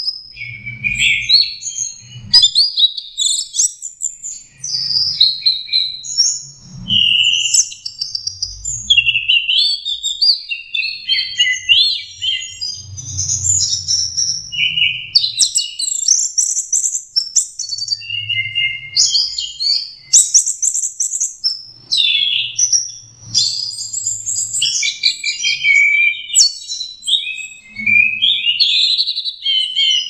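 Orange-headed thrush (anis merah) singing a continuous 'teler' song: an unbroken run of quick, varied whistled phrases rising and falling in pitch, one after another with hardly a gap.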